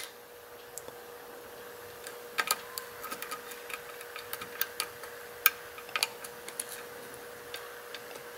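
Lock pick and tension wrench working the pins of a six-pin challenge lock: irregular light metallic clicks and ticks as the pick lifts and sets pins, thickest in the middle stretch.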